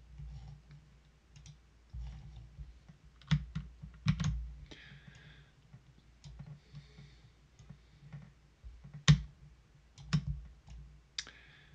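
Scattered clicks of a computer mouse and keyboard, a few at a time with pauses between, the loudest about three, four and nine seconds in, over a faint low hum.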